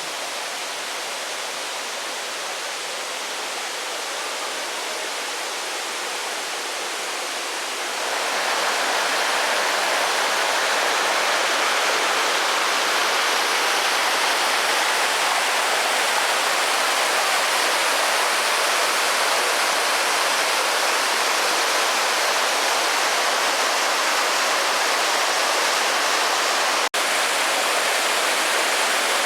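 Steady rushing water, which gets louder about eight seconds in, with a split-second break near the end.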